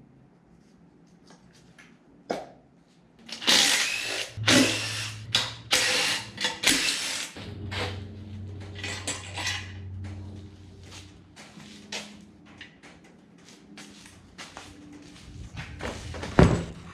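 Power tool run in several short bursts, as on bolts being taken out of an engine's top end, then running more steadily for a few seconds. Scattered clicks and clanks of tools on metal come throughout, with a sharp knock near the end.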